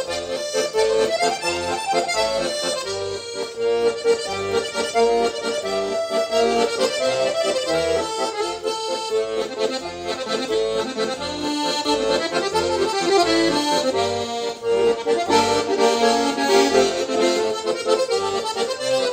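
Tula-made 'Kulikovo Pole' 27/25 button garmon in F major, with wooden resonators and a two-tenor-and-piccolo reed voicing, being played: a tune on the right-hand buttons over a regularly pulsing left-hand bass-and-chord accompaniment.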